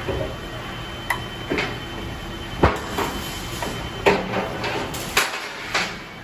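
Davi four-roll CNC hydraulic plate roll running with a steady low hum as it bends a steel plate, with irregular metallic clanks and knocks, the sharpest about two and a half seconds in.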